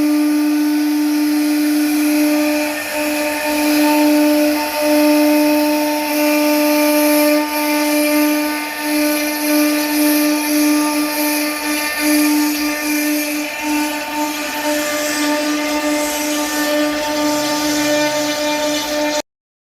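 CNC wood-carving router spindle running with a steady whine and hiss, its level wavering slightly, then cutting off suddenly near the end.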